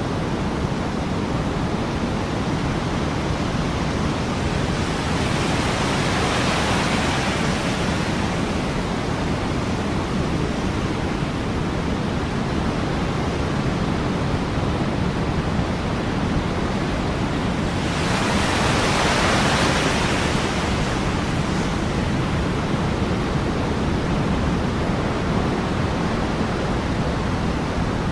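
Ocean surf: a steady wash of waves, with two bigger waves swelling and breaking, about six seconds in and again about nineteen seconds in.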